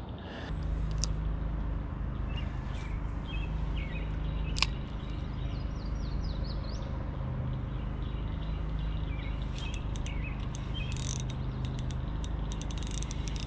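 Spinning reel being cranked, a steady low whir, with small birds chirping on and off and one sharp click a little before the middle.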